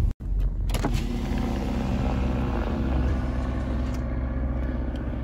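Car running, heard from inside the cabin: a steady low engine and road hum. The sound drops out briefly at an edit just after the start.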